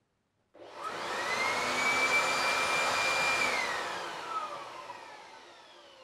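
Electric leaf blower starting up with a rising whine about half a second in, running steady for a couple of seconds, then switched off and winding down with a falling whine that fades away.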